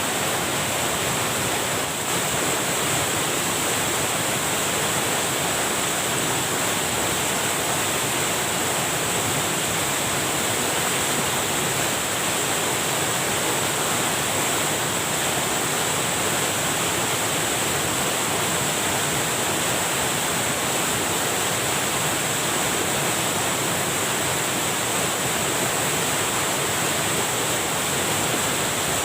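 Water rushing steadily over a small weir, the stream running high after heavy rain.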